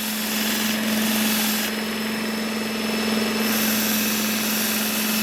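Work Sharp Ken Onion Edition belt sharpener running with a steady motor hum, while a small whittling knife blade is drawn across its compound-loaded stropping belt in three passes, each adding a hiss over the hum.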